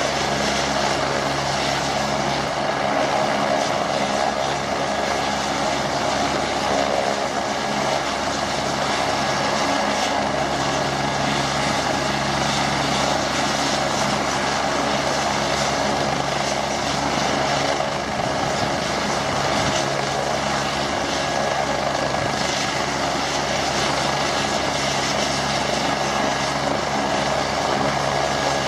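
AgustaWestland AW109 Grand twin-turboshaft helicopter running on the ground with its main rotor turning. Its engine and rotor noise holds steady throughout, with a high tone running through it.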